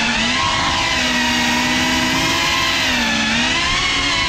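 BetaFPV Cinelog 35 cinewhoop's motors and ducted propellers whining as the drone flies. The pitch holds, then slides up and down with the throttle, with several close tones from the different motors.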